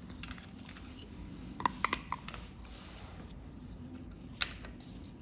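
Light handling of small hard parts: a quick run of three sharp clicks just under two seconds in, and one more click at about four and a half seconds, over a low steady background.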